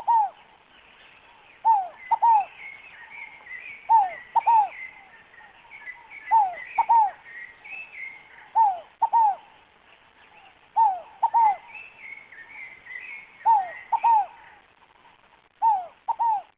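Rolinha fogo-apagou, a small Columbina ground dove, cooing a phrase of two or three short falling notes and repeating it every two seconds or so. Faint twittering of small birds runs behind it.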